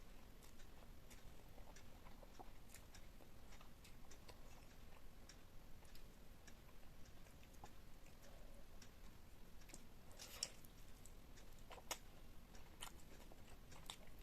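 Faint close-miked eating sounds: quiet chewing with scattered small wet mouth clicks, the sharpest a little after ten seconds in and again near twelve seconds.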